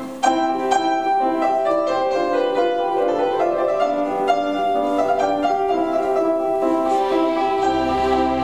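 A grand piano playing classical music with a string orchestra, the piano carrying the line in a run of quick notes. A brief lull at the start leads into a sudden entry, and a low bass part comes back in near the end.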